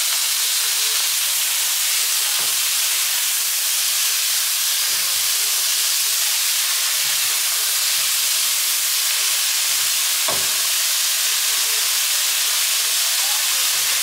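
Cubed steak and sliced onions sizzling steadily in a hot frying pan as they sear. Tongs knock against the pan a couple of times.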